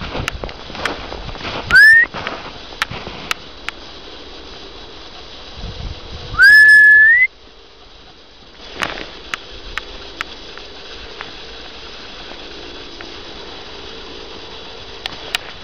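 Two loud whistles calling the dogs: a short rising one about two seconds in, then a longer one about six seconds in that rises, holds and rises again at the end. Short scattered clicks fall between and after them.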